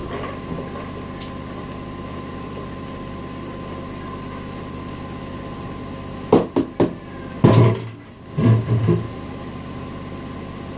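Plastic colander and bowl knocking as rice is moved between them, over a steady kitchen hum. About six seconds in come three quick sharp knocks, then two heavier, deeper thumps over the next couple of seconds.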